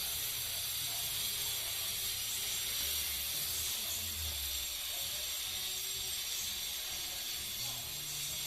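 Steady high-pitched hiss at an even level, with a faint low rumble underneath.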